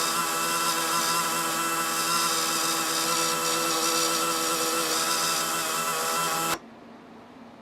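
Small electric motor running at a steady whine, then cutting off suddenly near the end.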